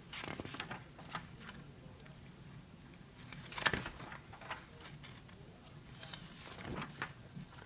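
Faint rustling and light taps of paper being handled, with a louder rustle about three and a half seconds in and another near the end.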